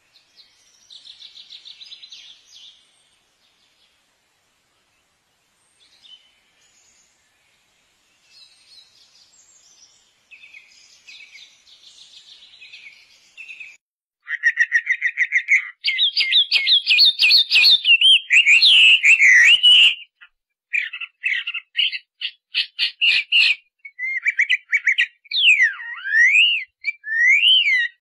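Parrots chirping and calling: faint twittering for the first half, then loud, rapid, shrill chirps and swooping calls from about halfway through, coming in quick runs with short pauses.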